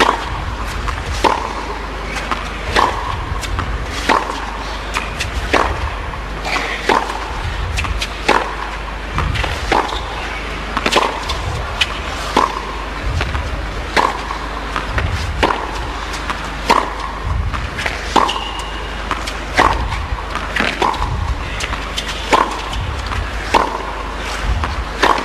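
Tennis ball struck back and forth with racquets in a long baseline rally on a hard court: a sharp pop about every second and a half, keeping up an even rhythm.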